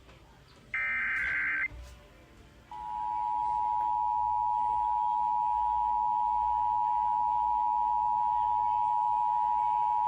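Emergency Alert System digital header: about a second of shrill warbling data tone, the last of its repeated bursts, then after a short gap the EAS two-tone attention signal (853 and 960 Hz sounded together) starts about two and a half seconds in and holds steady and loud.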